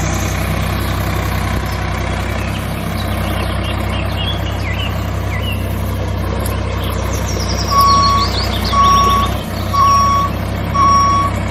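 Dubbed tractor engine sound running steadily, with a few brief high chirps a few seconds in, then a reversing alarm beeping about once a second from about eight seconds in.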